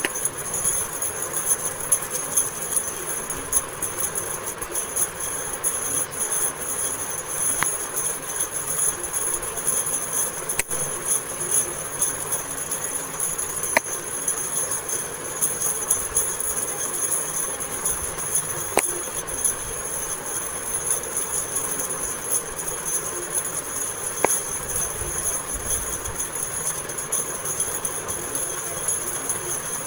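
Steady, high-pitched jingling, like small bells, with a few faint clicks scattered through.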